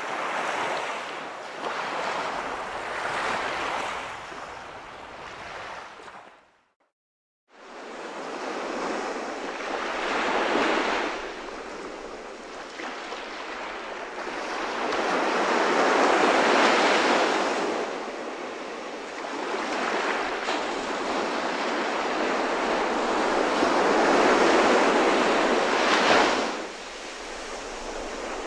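Ocean surf: a rush of breaking waves that swells and fades every few seconds. It drops out for about a second, six seconds in.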